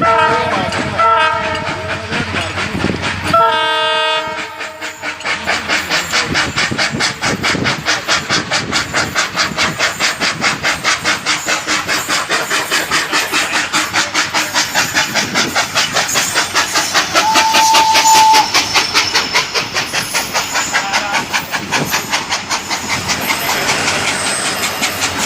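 Train horn sounding twice, then a fast, even clickety-clack of wheels over rail joints, with a short tone near the middle.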